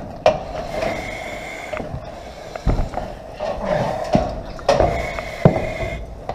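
Breathing through a compressed-air breathing-apparatus mask, with two long hissing breaths through the demand valve, under the exertion of a breathing-apparatus stress course. Several sharp knocks of gear and boots against the steel cage of the crawl course come between and over the breaths.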